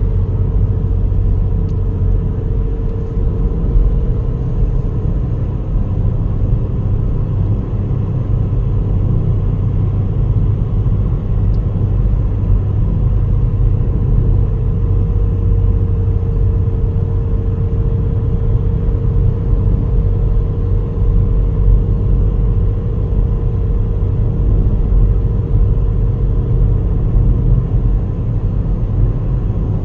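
Steady low rumble of a car driving along, heard from inside the vehicle, with a faint steady whine running over the road noise.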